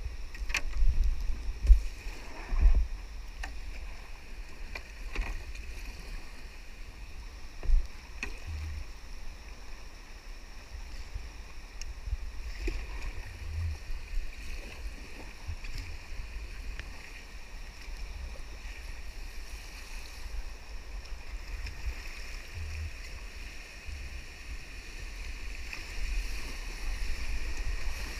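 Paddle strokes and river water running around a Pyranha whitewater kayak, with a few low thumps in the first seconds and again about eight seconds in. Near the end the rush of water grows louder as the kayak runs into a rapid.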